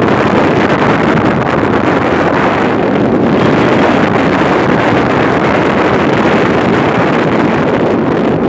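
Strong wind buffeting the microphone: a loud, steady rush with no clear tones.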